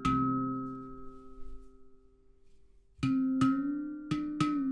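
Stainless steel handpan in Celestial Sound's C Saraswati 11 major scale, played with the hands. One note is struck and left ringing, dying away over about two seconds. After a short pause comes a quick run of several notes near the end.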